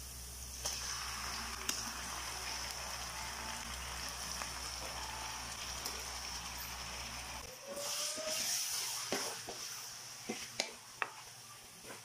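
Oil sizzling in a nonstick pan as garlic and then raw chicken pieces fry in it, a steady hiss that grows louder for a moment near the middle. Near the end a wooden spatula knocks against the pan a few times while stirring the chicken.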